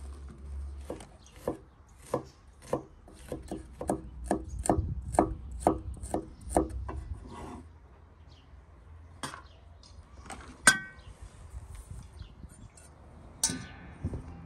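Knife chopping garlic on a wooden cutting board, in quick, even strokes about two a second for several seconds. This is followed by a few scattered knocks and a couple of sharp metallic clinks with a short ring.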